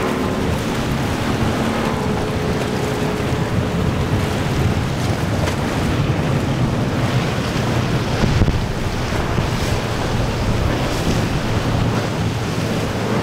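Cigarette 42' Huntress powerboat running at speed on quad Mercury 400 outboards, engine hum under the rush of water and spray off the hull, with wind buffeting the microphone.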